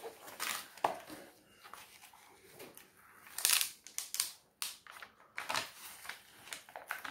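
Rustling and crinkling of a diamond painting canvas and its protective cover sheet being unfolded and smoothed flat by hand, in irregular bursts, the loudest about three and a half seconds in.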